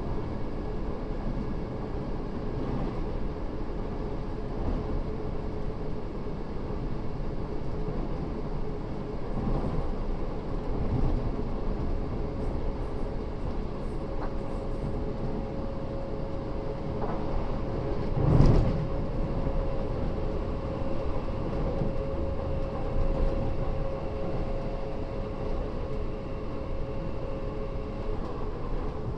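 Interior running sound of a British Rail Class 317/7 electric multiple unit with nose-suspended traction motors: a steady rumble of wheels on rail with a constant motor hum, a second higher tone joining about halfway through and dropping out near the end. One loud knock from the running gear comes about two-thirds of the way through.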